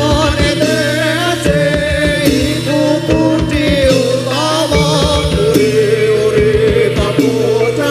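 Live Javanese gamelan playing jaranan dance accompaniment: metallophones and gongs holding a steady melody with a singing voice wavering over it and hand-drum strokes beating underneath.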